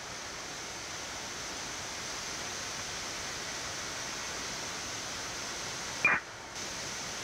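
Steady hiss of Boeing 787 flight-deck background noise, air-conditioning airflow with engines running on the ground, with one short sharp click about six seconds in.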